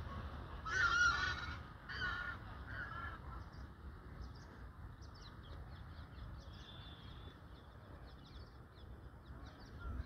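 Red-naped ibis (Indian black ibis) calling as it takes off: three loud calls, each shorter and fainter than the last. Faint high chirps of small birds follow.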